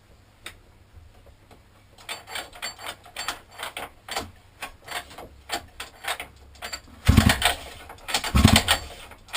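Recoil pull starter of a 50cc mini moto quad being worked: a run of sharp clicks, then two hard pulls near the end that turn the engine over without it firing. The quad won't start despite a new carburettor and pull start.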